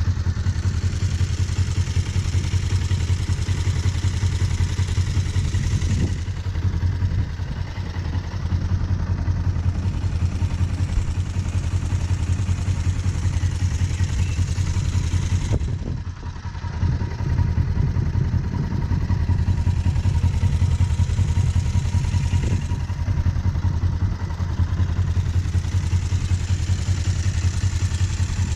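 Kawasaki ER-5's parallel-twin engine idling steadily through its stock exhaust, a fast even low pulsing, with a brief dip in level about six seconds in and again about sixteen seconds in.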